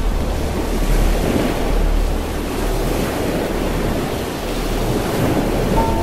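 Steady rushing of sea waves and wind, with a strong low rumble.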